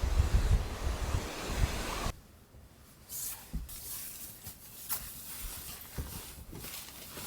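Strong wind blowing across the microphone, loud and deep, cutting off abruptly about two seconds in; after that a much quieter stretch with scattered faint clicks and rustles.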